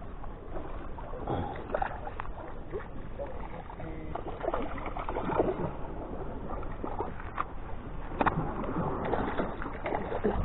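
Small waves sloshing against a concrete pier with a steady rumble of wind on the microphone and scattered light taps, then a splash in the water near the end.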